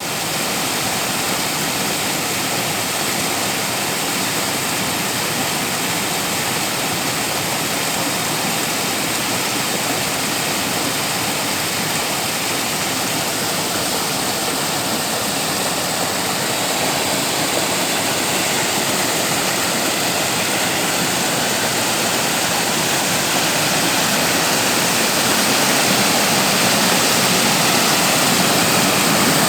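Stream water flowing, a steady even rush that grows a little louder near the end.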